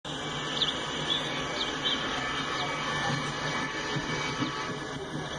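Low, steady drone of the approaching freight train's EMD diesel locomotives, with birds chirping several times.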